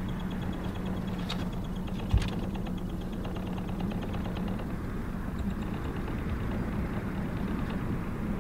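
A motor running steadily with an even low hum, with a single short thump about two seconds in.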